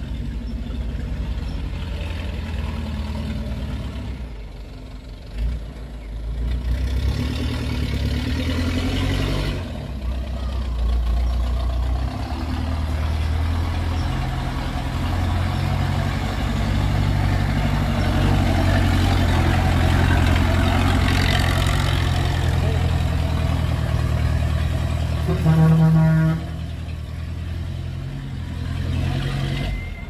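Diesel engine of a Hyundai dump truck running as the truck drives up and passes close by, growing louder as it nears. About three-quarters of the way through there is a short horn blast, the loudest sound.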